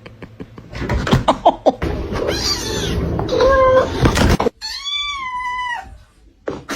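Several knocks and a loud noisy scuffle, then a cat giving one long drawn-out meow that rises slightly and falls away at its end.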